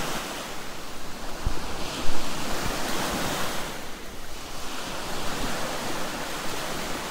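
Small waves breaking and washing up on a sandy shore: a steady rushing surf that swells a little a couple of times, with wind buffeting the microphone.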